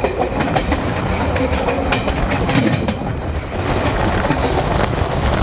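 Train running on the rails: a steady rumble with irregular clacking from the wheels.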